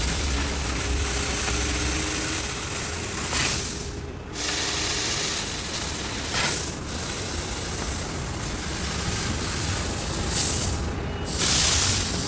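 Steady hissing noise from CNC machining of aluminium facade panels, dipping briefly twice.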